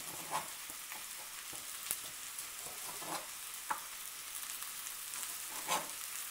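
A knife slicing cooked, cooled sausages on a cutting board, the blade knocking sharply on the board about five times, over a steady background hiss.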